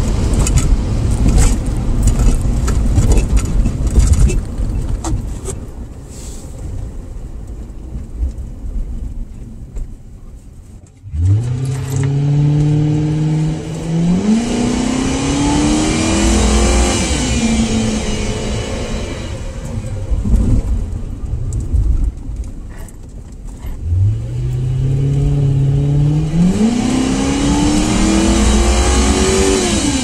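A car's V8 engine, heard from inside the car: a low rumble while cruising, then two hard accelerations about 11 and 24 seconds in. Each time the pitch climbs, drops at an upshift, climbs again and then falls away as the throttle comes off.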